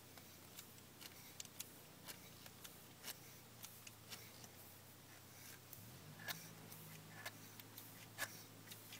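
Faint, irregular clicks and ticks of a hand tap cutting M10 x 1.5 threads into a drilled snooker ball, over a faint low hum.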